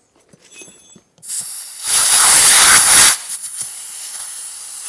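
Compressed air hissing from an air hose as a small tubeless tire is filled after its bead has seated. The hiss starts about a second in, is loudest for about a second, then carries on steadier and quieter.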